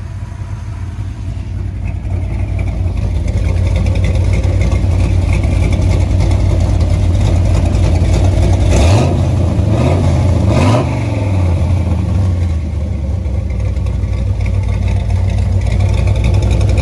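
Carbureted 6.0-litre LS V8 with a Summit Racing stage 2 truck cam (SUM-8701) idling. The throttle is blipped twice, about nine and ten and a half seconds in, and each time the revs rise and drop back to idle.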